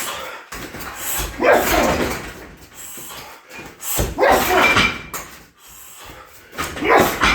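Three heavy shin roundhouse kicks landing on a 60 kg heavy bag, spaced roughly three seconds apart, each a sharp hit followed by about a second of noisy rattle as the bag swings.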